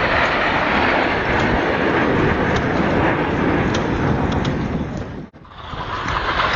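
Jet roar from the Red Arrows' BAE Hawk T1 jets flying their display overhead, heard through a phone microphone. The sound briefly cuts out about five seconds in and then returns.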